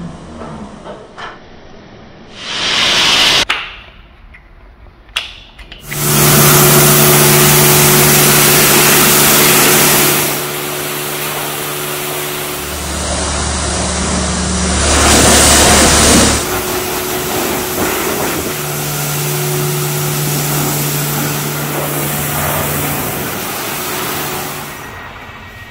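Pressure washer spraying water onto a foam-covered SUV's bodywork: a loud, even hiss with a steady low hum beneath it, in several short clips that start and stop abruptly.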